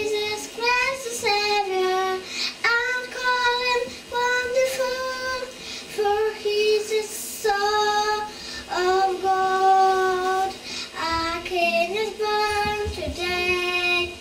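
A young girl singing solo into a microphone, a melody of held notes with short breaks for breath.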